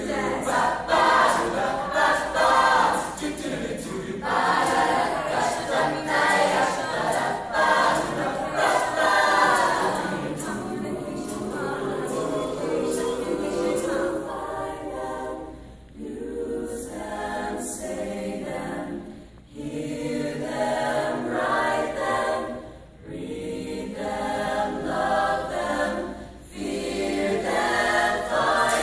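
Mixed choir singing a cappella, the voices sustained through long phrases, with short breaks between phrases in the second half.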